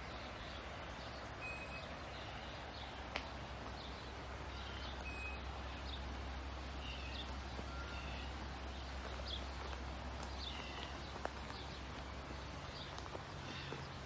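Birds chirping in short scattered calls over a steady outdoor background noise with a low hum, with two sharp clicks, one about three seconds in and one near the end.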